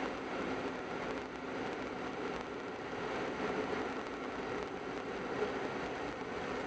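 Steady noise of a car driving along a road, heard from inside the car: an even rumble of tyres and engine with no sudden events.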